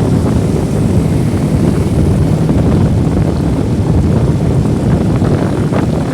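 Wind buffeting the microphone of a moving motorcycle, with the motorcycle's engine running steadily underneath.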